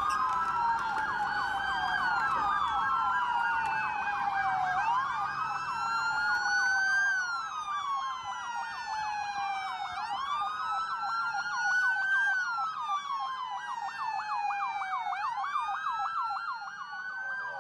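Several police car sirens sounding at once: slow rising-and-falling wails overlapping a fast yelp.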